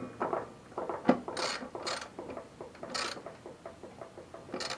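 Scattered small metallic clicks, scrapes and clatters of hand tools and parts being handled while working on a lawnmower, with a few sharper clinks and no steady rhythm.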